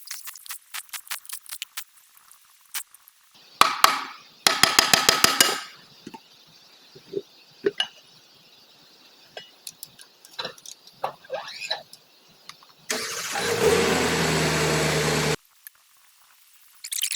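Hand-tool and power-tool work on a heavy axle: scattered metallic clinks and clicks, a short run of rapid, evenly spaced pulses about five seconds in, and a powered tool running steadily for about two and a half seconds near the end, starting and stopping abruptly.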